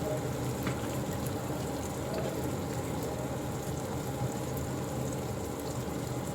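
Onion-tomato masala sizzling steadily in oil in a kadai, with a faint click or two.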